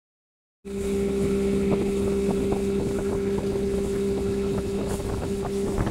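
A 60 hp Evinrude outboard running steadily at speed, heard from aboard the boat with wind on the microphone. It cuts in abruptly about half a second in, after silence.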